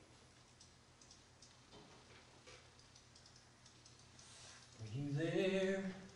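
Faint room tone with a few soft clicks, then about five seconds in a voice holds one long note, sliding up at its start.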